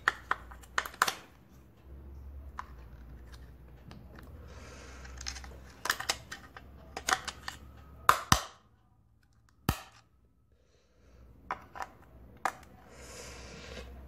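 Sharp plastic clicks and small knocks as two AA cells are pushed and snapped into the battery compartment of a plastic wireless doorbell receiver, with the casing handled between them.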